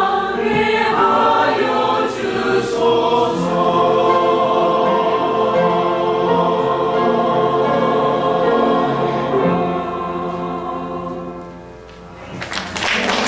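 Church choir singing the final bars of a hymn, ending on a long held chord that fades out; applause breaks out right after, near the end.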